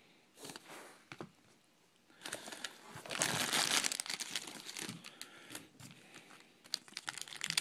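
A plastic trading-card pack wrapper being torn open and crinkled by hand, with a few short rustles and then a longer spell of crackling about two seconds in.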